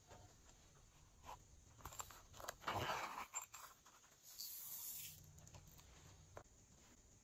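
Faint clicks and rustling as a small plastic container is handled and opened. A little over four seconds in, foam beads are poured from it into a tray of glossy slime with a soft hissing rustle.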